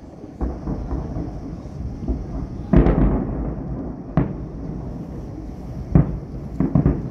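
Distant fireworks shells bursting in a series of booms, the loudest about three seconds in with a rumble trailing after it. Single booms follow at about four and six seconds, then a quick cluster near the end.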